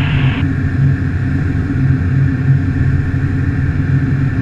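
Steady drone of an Evektor light-sport aircraft's piston engine and propeller in cruise flight, heard from inside the cockpit.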